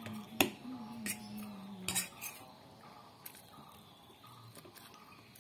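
Metal fork clinking and scraping against a ceramic plate while noodles are picked up and eaten: a few sharp clicks in the first two seconds, the loudest about half a second in, then only faint ticks.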